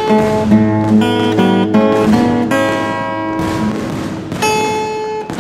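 Background music led by a plucked string instrument, picking a melody of quick single notes over lower held notes.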